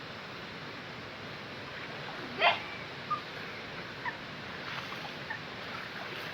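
Steady rush of river water from the falls, with one short rising call about two and a half seconds in.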